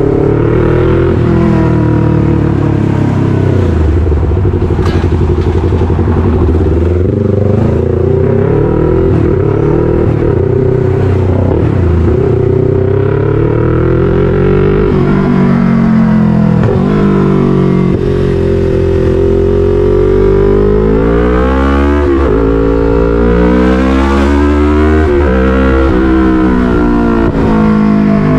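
Yamaha MT-03's 321 cc parallel-twin engine through an SC-Project full exhaust, heard from the bike itself while riding. It runs at a fairly steady note at first. From about halfway it revs up through the gears, the pitch climbing and then dropping back at each upshift.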